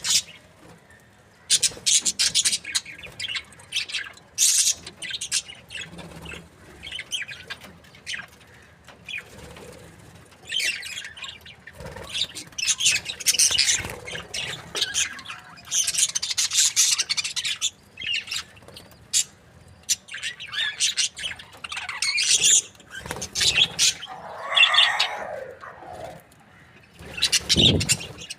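Budgerigars chirping and chattering in quick, irregular bursts of high chirps with short pauses between, and a lower, warbling call near the end.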